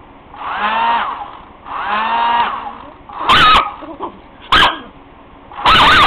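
A dog vocalising at a blow dryer: two drawn-out howls that rise and fall in pitch, followed by three short, very loud, harsh sounds in the second half.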